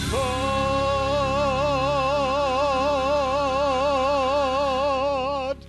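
Man singing one long final note with a wide, even vibrato over sustained backing accompaniment, ending abruptly about five and a half seconds in.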